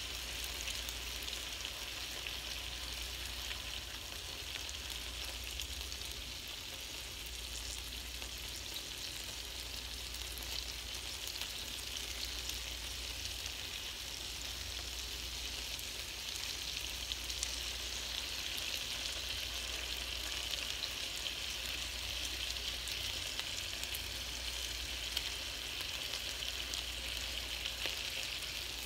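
Chicken skewers sizzling on a hot electric contact grill, a steady hiss with fine crackles.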